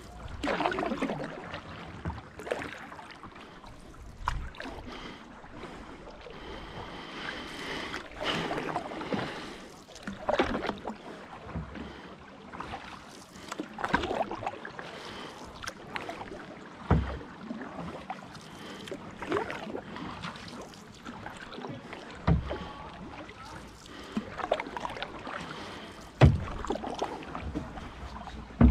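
Paddles dipping and splashing in river water from a small paddled boat, one stroke every second or two, with a few sharp knocks.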